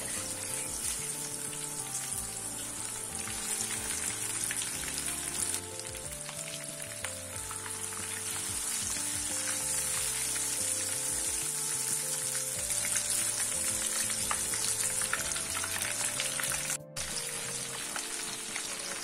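Marinated chicken leg pieces sizzling steadily as they fry in hot oil in a kadai, with a slotted spoon stirring and turning them partway through. Light background music with held notes runs underneath, and the sound drops out for a moment near the end.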